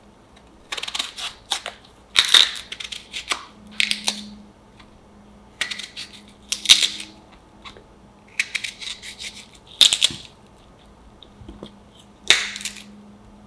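A small kitchen knife slicing through crisp, firm peach flesh, about six separate crunchy cuts with short pauses between, as wedges are cut from a peeled peach.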